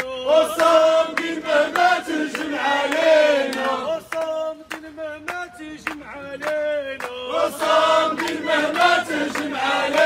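A crowd of protesters chanting Arabic protest slogans in unison, to a sung, rhythmic cadence, with hand clapping.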